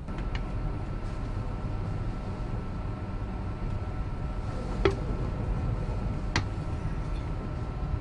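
Cabin noise inside the Volkswagen eT! electric delivery van as it moves: a steady low rumble with a thin, steady high whine over it. Two sharp clicks come about a second and a half apart near the middle.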